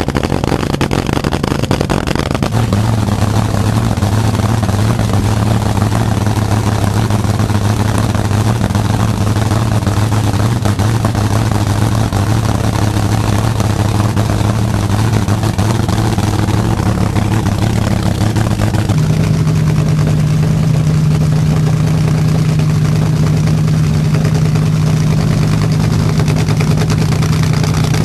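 The supercharged V8 of a front-engine dragster idling loud and steady, its idle dropping slightly a couple of seconds in, then stepping up to a higher steady speed about two-thirds of the way through.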